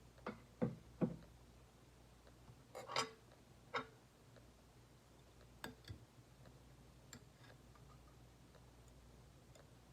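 Scattered light clicks and taps of small metal tools and parts being handled while soldering: three sharp taps in the first second, then a few fainter ones spread out.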